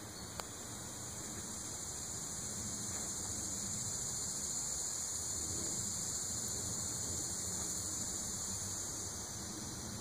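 Cicadas buzzing in the summer trees: a steady high drone that swells through the middle and slowly eases off near the end.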